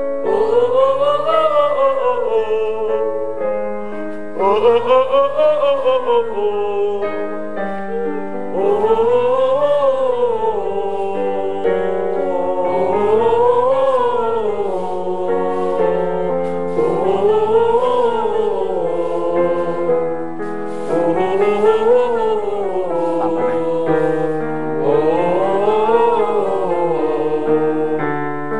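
Group of singers doing a vocal warm-up exercise in unison: a quick rising-and-falling scale followed by a held note, repeated about every four seconds.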